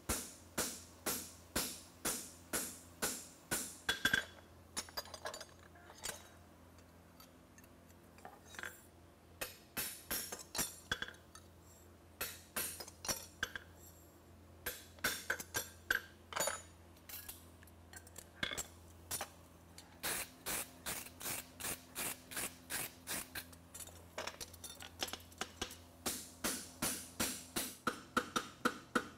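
Hammer striking a hot steel horseshoe on an anvil, and a fullering tool held in its groove, during final shaping and fullering: runs of sharp ringing blows about three a second, with short pauses between runs. A steady low hum runs underneath.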